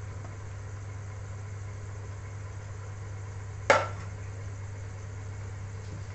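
A steady low hum throughout, and a single sharp knock about three and a half seconds in, as a utensil strikes the metal kadai while cooked rice is tipped in for biryani.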